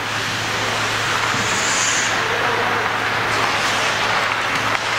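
Ice hockey arena noise during a game: a steady wash of skates on ice and murmur from the stands over a low steady hum, with a brief high hiss about two seconds in.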